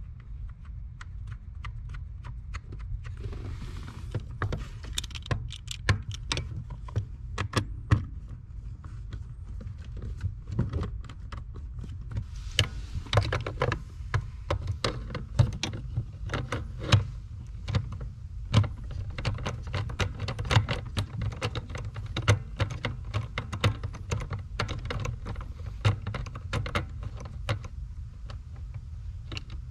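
Irregular clicks and clinks of hand tools working on metal car parts, over a steady low hum.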